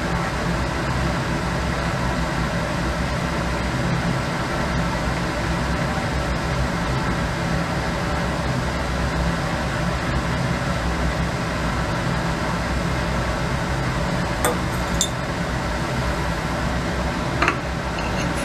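Steady machine hum, with a few light glass clinks near the end as a glass graduated cylinder is lifted off the neck of a round-bottom flask.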